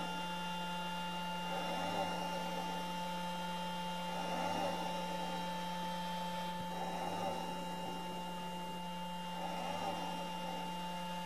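Tabletop laser fog projector running: a steady hum from its beam-scanner motor and fogger, with several higher steady tones above it, swelling softly about every two and a half seconds while fog is being pumped.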